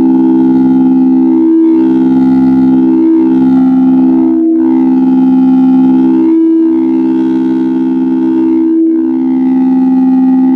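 A sustained instrumental drone: several steady held tones sounding together, with brighter overtones swelling and fading in waves every one to two seconds.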